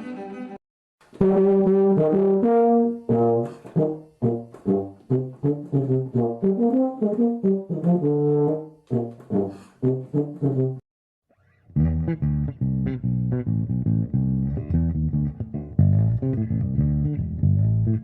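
Two short solo musical instrument samples: a melody of separate notes, then after a brief pause a lower-pitched instrument playing quick notes.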